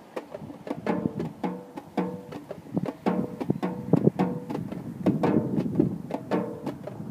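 A snare drum quartet playing with sticks: a busy, interlocking rhythmic pattern of many sharp strokes, the drum heads ringing briefly at a few different pitches.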